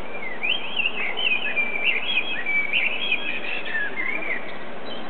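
Common blackbird singing one warbling phrase of quick, fluting rising and falling notes, lasting about four seconds, over a steady background hiss.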